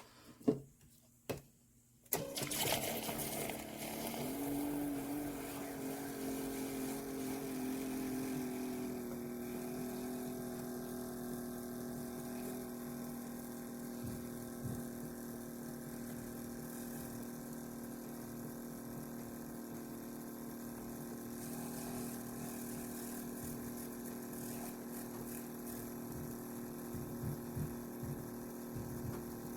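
A few handling clicks, then from about two seconds in the Ninja coffee maker's built-in milk frother whisk runs with a steady motor hum in milk. Its pitch steps up a little about four seconds in and then holds.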